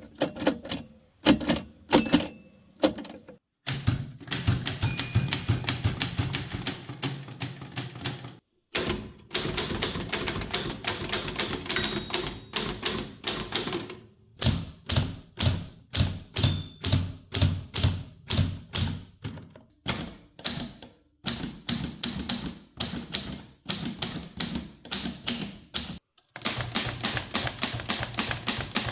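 Mechanical typewriters being typed on, their type bars striking in quick, uneven runs of sharp clacks. The sound changes character every few seconds as one machine gives way to another. Now and then a brief high ring sounds among the strikes.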